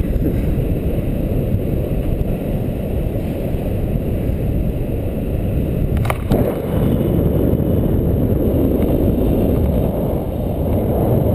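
Wind buffeting the camera microphone in flight under a tandem paraglider, a steady low rumble of rushing air. A single sharp click about six seconds in.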